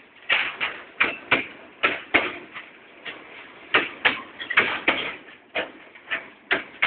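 Freight train wheels clicking over rail joints, the knocks coming in pairs about a third of a second apart, a pair roughly every second.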